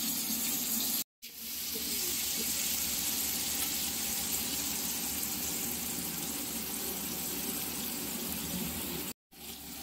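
Oil sizzling steadily in a kadai as potato pieces and chopped tomato fry. The sound cuts out abruptly twice for a moment, about a second in and near the end.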